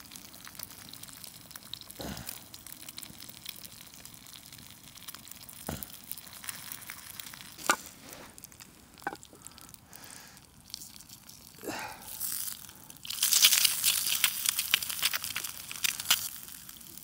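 Food frying in a hot pan over a campfire: a low sizzle with occasional sharp clicks and knocks, then about thirteen seconds in a loud burst of spitting, crackling sizzle lasting some three seconds.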